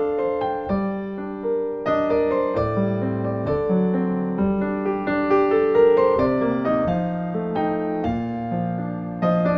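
Background music: a solo piano playing a steady run of notes over slow-moving bass notes.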